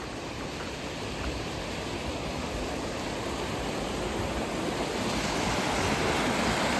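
Fast-flowing river rushing, a steady wash of water noise that grows gradually louder, as when stepping onto a bridge over it.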